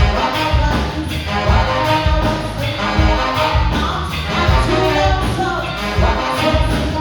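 A live band playing loudly: bass and drums keep a steady beat under pitched instruments, with singing likely in the mix.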